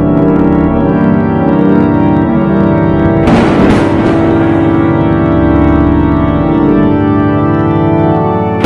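Music built on loud, held organ chords, with a crash-like hit about three seconds in and another at the very end.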